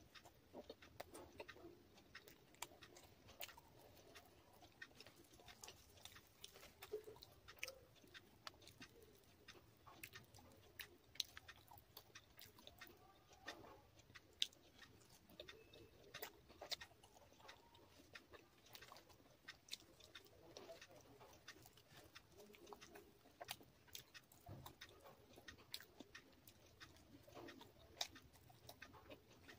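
Faint close-up chewing of soft fried puri and curry: a steady scatter of wet mouth clicks and smacks, with a few sharper clicks now and then.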